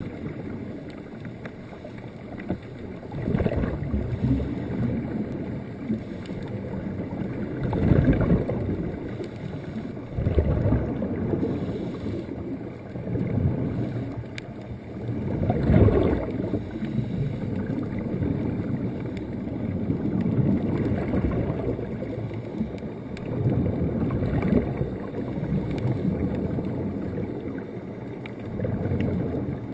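Muffled underwater noise recorded through a camera's waterproof housing: a low rushing rumble that swells every few seconds, as air bubbles from the divers' helmets stream past.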